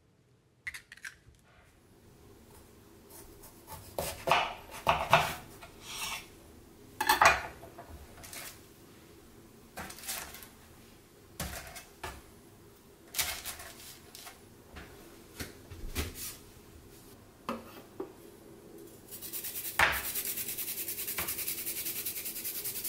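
A kitchen knife cutting eggplants on a cutting board: irregular knocks and scrapes every second or two. Near the end, ginger rubbed fast on a metal grater, a steady rapid rasping.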